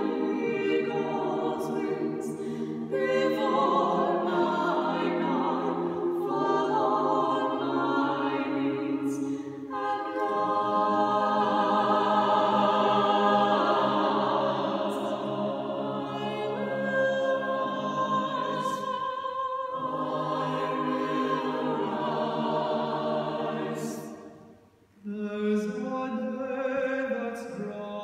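College chorale singing a cappella: many voices holding sustained chords in several parts. The voices break off briefly near the end, then come back in together.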